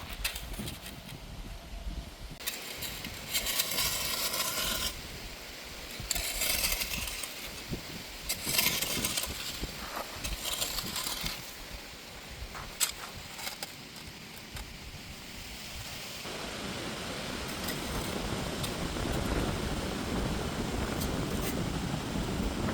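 Several bursts of gritty scraping and clinking on sand and gravel, each a second or two long, then a steady rushing noise that builds from a little past halfway.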